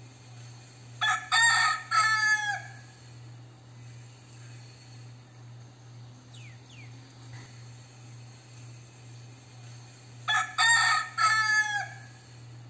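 Crossbred gamecock rooster crowing twice, about nine seconds apart. Each crow is a quick run of short notes ending in a longer note that drops in pitch.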